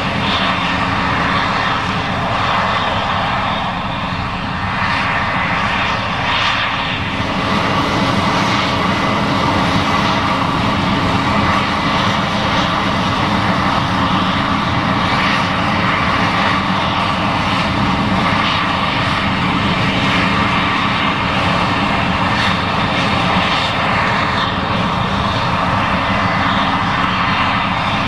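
Case IH 7140 Axial-Flow combine running steadily while harvesting corn: a continuous diesel engine drone mixed with the rumble of the working machinery.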